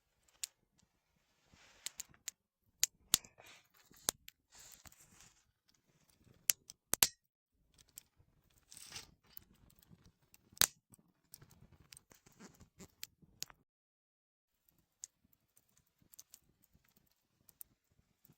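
Close rustling and crinkling with sharp clicks and taps, like things being handled and moved about. The sounds are busy at first and thin to a few faint ticks near the end.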